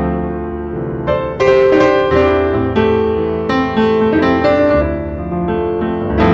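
Piano music: a melody of struck notes over sustained chords, with a new note or chord every half second or so.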